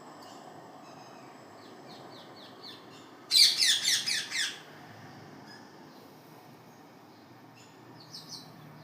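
Pet parrot giving a fast run of shrill, downward-sliding squawks for just over a second, with a few fainter calls before it and near the end. This is the hungry call the owners liken to the sound of a plate.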